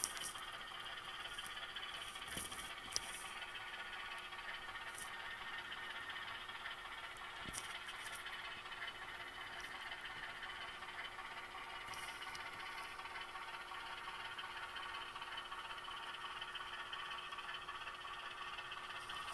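HO scale model switcher slowly shoving a cut of hopper cars over the layout's track, giving a steady light rattle of wheels on rail with a few sharp clicks.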